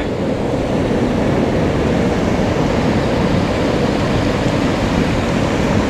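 Mountain stream water rushing, a steady, loud noise with no distinct splashes or knocks.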